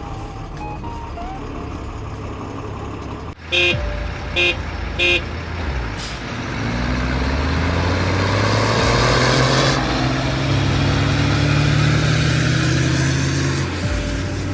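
Three short horn toots, then a heavy truck's engine revving up and pulling away, its pitch rising for a few seconds and then holding steady.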